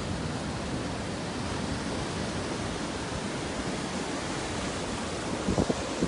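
Sea surf washing over shoreline rocks, a steady hiss of breaking and draining water, with a few low rumbles of wind on the microphone near the end.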